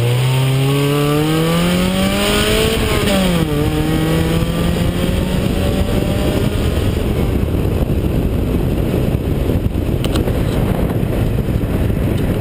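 1987 Toyota MR2's 1.6-litre twin-cam four-cylinder engine accelerating hard: revs climb for about three seconds, drop sharply at an upshift, then climb again more slowly. After about six seconds the engine tone fades under steady wind and road noise on the side-mounted camera.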